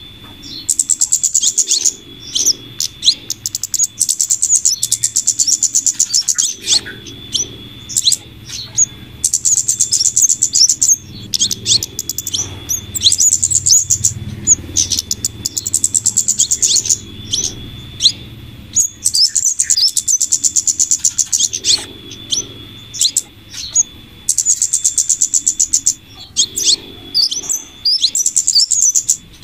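Bird-lure recording of flowerpecker (kemade/cabe-cabean) calls combined with female scarlet minivet calls. Very rapid, high buzzing trills recur every few seconds, with sharp short chips between them, played loud and on a loop to draw in wild birds.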